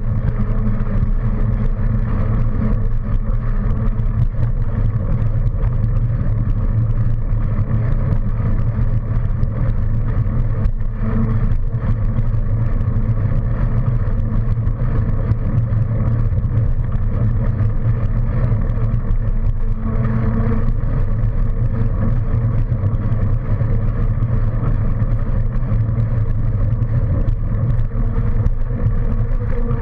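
Steady, loud rumble of riding recorded on a mounted camera: wind and road noise with a low hum, unbroken throughout.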